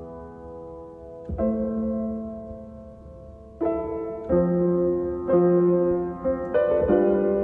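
Slow instrumental piano music: chords and notes struck every second or two, each ringing on and fading before the next.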